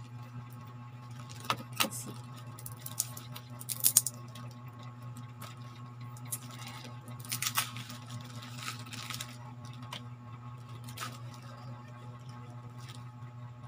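Plastic crinkling and clicking as a pump-top lotion bottle is unwrapped and its pump head worked open, in short irregular bursts over a steady low hum.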